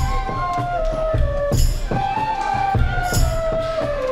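Several bansuri bamboo flutes play a melody together in phrases that step down in pitch, twice. Underneath are hand-drum beats, with a bright jingling accent about every second and a half.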